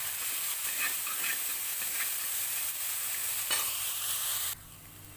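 Onion, garlic and ginger paste sizzling in hot mustard oil in a metal kadhai, stirred with a metal spoon that scrapes and taps the pan now and then. The sizzle cuts off suddenly near the end.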